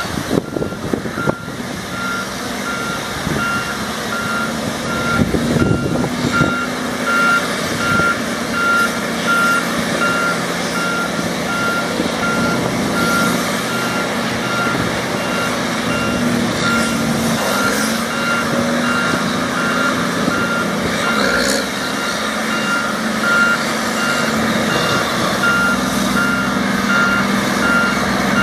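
The backup alarm on a 1990 Champion 740A motor grader beeping steadily as the grader reverses, over the steady running of its Cummins L10 diesel engine. A few clunks come in the first several seconds.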